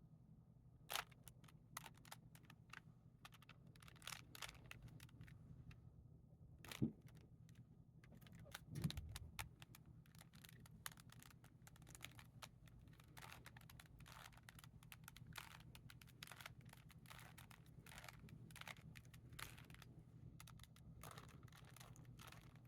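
A Rubik's Cube's plastic layers being twisted by hand: faint, irregular clicks and clacks, with a few louder knocks, over a low steady hum.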